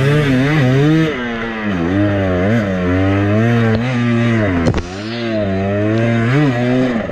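Husqvarna TE250 enduro motorcycle engine revving up and down as the throttle is opened and closed, its pitch rising and falling several times. A single sharp knock cuts through about halfway through.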